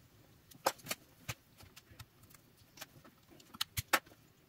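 Scattered light clicks and ticks of a small screwdriver and pick working inside a lithium-ion battery pack and being handled on the workbench, with a quick cluster of sharp ticks near the end.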